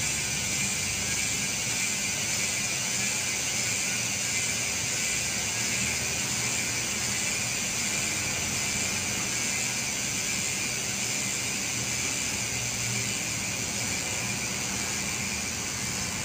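Sagmit M120 sealed-bearing rear hub freewheeling, its freehub pawls ratcheting in a fast, steady buzz.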